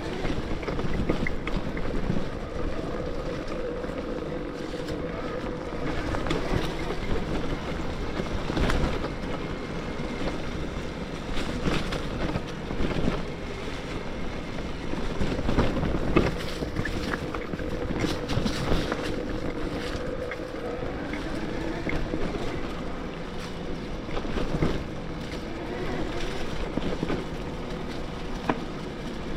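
Bafang BBSHD mid-drive motor on a 72-volt e-mountain bike whining steadily under power on a trail ride, with wind on the microphone and frequent knocks and rattles from the bike over rough ground. No creaking from the drive is heard.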